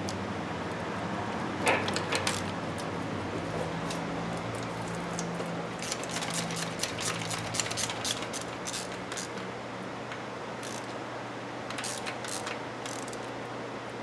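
Ratchet wrench clicking in several short runs as a starter mounting bolt is snugged up, over a steady low hum.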